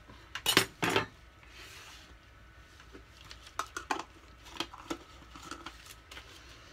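Utensils and small containers clattering on a hard tabletop as colourant cups, a jar and a metal spoon are handled: a cluster of loud knocks about half a second to a second in, then scattered lighter clicks and taps.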